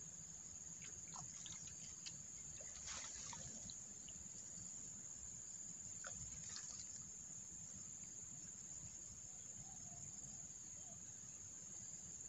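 Steady, unbroken high-pitched drone of insects such as crickets, with a few faint clicks and rustles around three and six seconds in.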